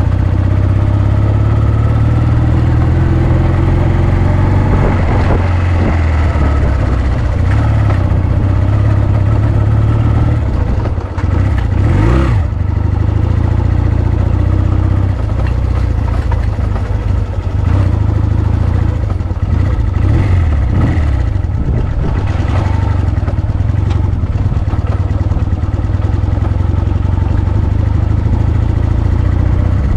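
Honda CD125T Benly's small four-stroke parallel-twin engine running under way on a rough dirt track, its note rising and falling with the throttle. A few knocks from the bike about twelve seconds in and again around twenty seconds.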